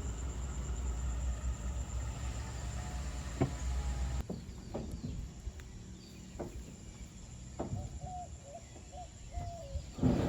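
Outdoor ambience: a low rumble of wind on the microphone with a steady high insect-like whine, cutting off about four seconds in. Then scattered light clicks and knocks, and near the end a run of short whistled bird calls.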